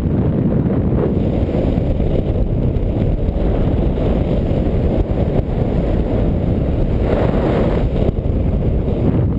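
Airflow of a paraglider in flight buffeting the pilot-mounted camera's microphone: a steady low rumble of wind noise.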